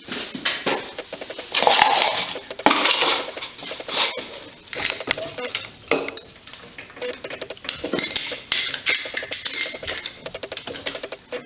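Metal hand tools clinking and clattering in a dense, irregular run of knocks, as someone rummages for a ratchet.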